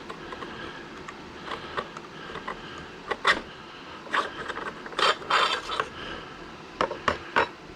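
Scattered clicks, knocks and short scrapes of freshly welded metal brackets being handled, with sharper knocks about three seconds in and near the end.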